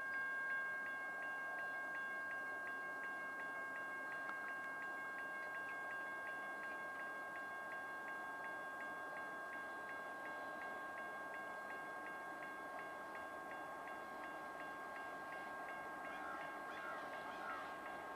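Railroad grade-crossing warning bell ringing with an even, steady rhythm of strokes, sounding while a train approaches the crossing.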